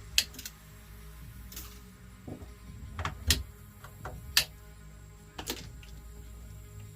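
Scattered sharp clicks and taps, about eight in all at uneven spacing, over a low steady hum.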